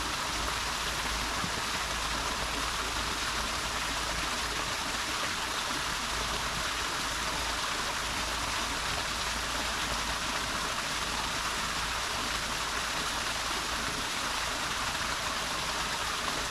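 Mountain stream water rushing steadily over rocks, an even hiss-like water noise that does not change.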